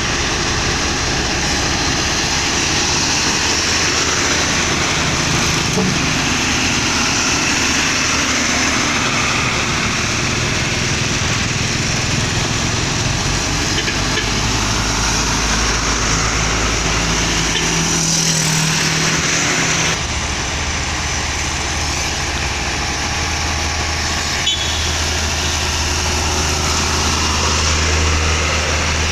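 Diesel dump truck engines running as the trucks drive past in convoy, a steady low engine hum that changes to a deeper drone about two-thirds of the way through.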